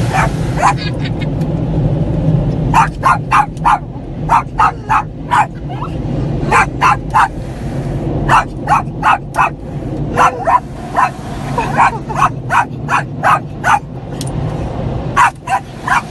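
Yorkshire terrier barking in alarm at the car wash noise: runs of short barks, about four a second, with brief pauses between runs, over a steady low rumble.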